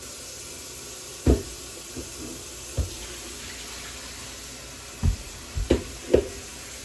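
Tap water running steadily into a kitchen sink while chicken legs are rinsed, with a few knocks and thumps about a second in and again near the end.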